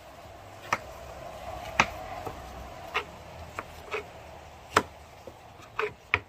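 Kitchen knife slicing a pepper on a wooden cutting board: about eight sharp, irregularly spaced knocks of the blade striking the board.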